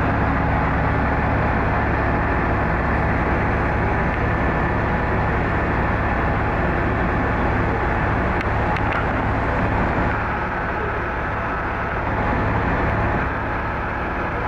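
City bus engines running steadily as a bus pulls through the terminal, a constant low drone with a faint steady whine over it. Tyre and traffic noise from the wet road mixes in.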